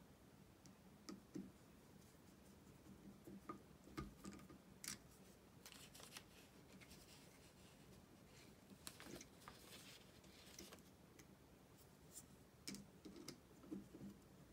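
Very faint, scattered clicks and light scrapes of small hand work: a hex driver turning in the set screw of a metal pinion gear on an RC motor shaft, with the plastic transmission case and spur gear being handled.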